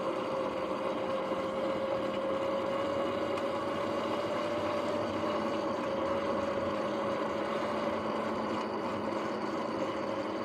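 Sur-Ron X electric dirt bike riding along: a steady whine from its motor and drivetrain, rising slightly in pitch in the first few seconds, over tyre and wind noise. The bike's bearings are noisy.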